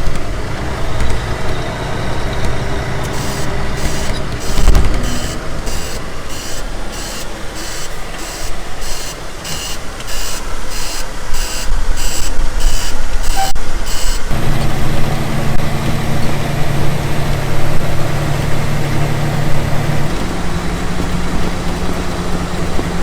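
Heavy vehicle engine running, with a reversing alarm pulsing a little under twice a second for about ten seconds. The alarm then stops and a steadier, deeper engine hum takes over.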